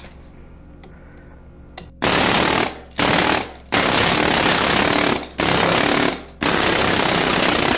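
Pneumatic air hammer with a pointed chisel bit hammering on the silicone lens of an LED off-road light. It fires in about five bursts of up to a second and a half each, starting about two seconds in, over a low background hum.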